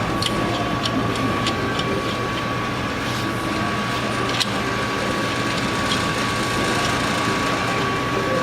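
Steady mechanical hum with a constant high whine, over faint metallic clicks of lug nuts being threaded onto wheel studs by hand.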